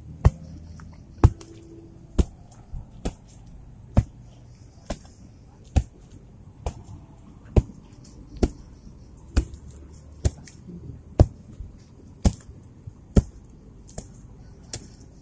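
Sharp knocks in a steady rhythm, about one a second.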